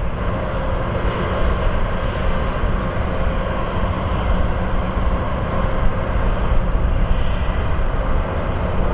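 Turbofan engines of an Airbus A320neo (CFM LEAP-1A) on the runway, heard at a distance: a steady rumble with a faint whine.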